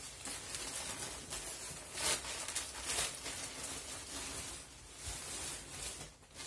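Plastic packaging rustling and crinkling as plastic-bagged puff mattresses are pulled up out of a large outer plastic wrap, with louder crackles about two and three seconds in.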